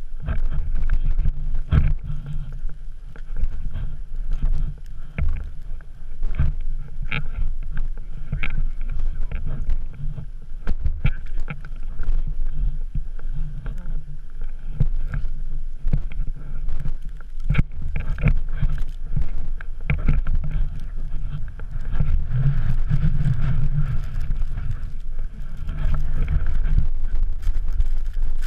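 Wind buffeting the microphone of a pole-held action camera, a steady low rumble, with irregular crunches and knocks from footsteps and trekking poles in snow.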